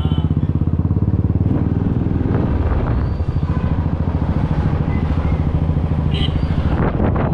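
Benelli 600i inline-four motorcycle engine running through its exhaust, with a rapid pulsing beat that becomes steadier after about two seconds.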